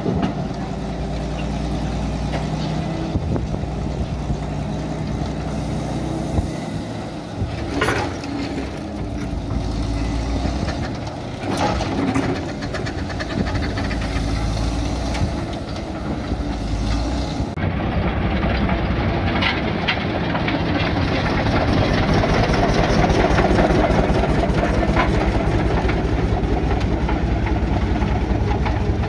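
Mann steam wagon's steam engine running as the loaded wagon drives along, with a fast, even beat and occasional knocks. About two-thirds of the way through, the sound suddenly becomes louder and harsher.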